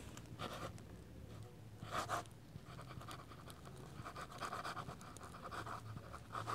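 Pen scratching across paper as a cursive signature is written, faint, in a run of quick strokes and loops. A slightly louder scrape comes about two seconds in.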